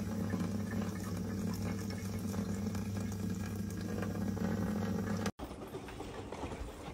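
Kitchen tap running steadily, its stream splashing onto a cat sitting in the sink, with a steady low hum under the water. It cuts off abruptly about five seconds in, leaving quieter outdoor background.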